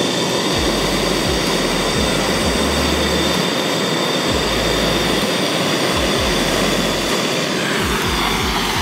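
Handheld gas torch flame blowing with a steady rushing hiss while it ignites a pile of ammonium dichromate; it eases slightly near the end.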